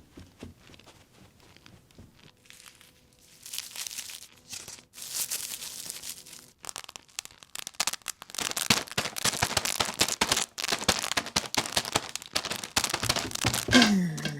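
Foley crackling and rustling made with household objects standing in for cooking sounds: a hissy crackle from about three and a half seconds in, then dense, fast crackling from about eight seconds in. Near the end comes a short falling vocal squeak, a voiced penguin call.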